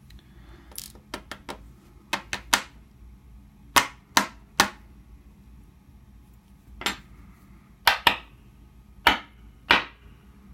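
Irregular sharp metallic taps and clicks, some in quick pairs or triples, from tools and the disassembled American 1100 padlock's core being knocked and handled while the last pin spring is worked out.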